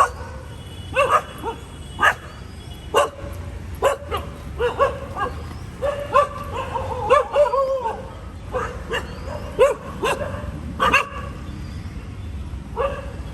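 A dog barking and yipping in short calls, about one a second, with a stretch of whining yelps in the middle.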